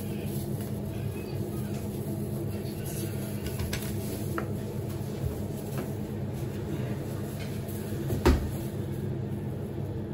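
Steady low hum of kitchen equipment, with a few light clicks and knocks of a knife and sausage on a wooden cutting board. One sharp, louder knock comes about eight seconds in.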